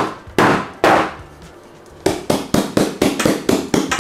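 Metal loaf pan full of cake batter knocked down onto a countertop to level and settle the batter: three sharp knocks in the first second, a short pause, then a quicker run of knocks about five a second from about two seconds in.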